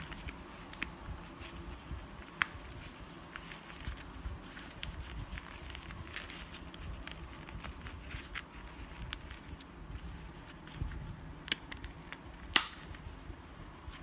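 Handling noise from a plastic backpack-strap camera mount being worked by hand: scattered small clicks and rustles over a low rumble. One click about two and a half seconds in and a sharper snap near the end stand out.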